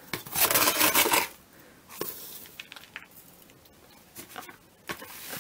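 A tin can scooping dry sand-cement mix out of a plastic bucket and pouring it into another, measuring the mix out by the canful. A gritty rush of pouring sand lasts about a second near the start, then softer scrapes and taps of the can against the plastic follow.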